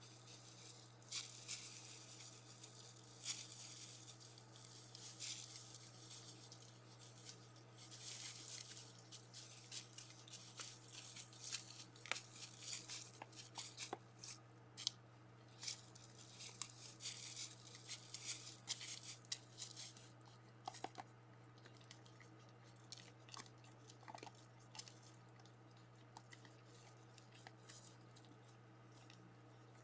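Deer feeding in dry leaf litter: faint, irregular crunching and rustling, thickest in the first two-thirds and sparse near the end, over a steady low electrical hum.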